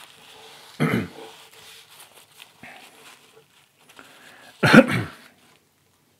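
A man's throat noises, twice: a short, cough-like clearing about a second in, and a louder, voiced throat sound a little before five seconds.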